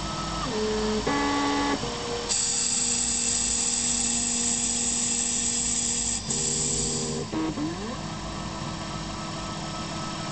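Emco 5 CNC lathe running a contouring cut, its axis stepper motors whining at steady pitches that jump to new notes every second or two as the feed changes direction. A high whine joins about two seconds in and stops about seven seconds in, and a short gliding pitch follows as the tool traces a curve.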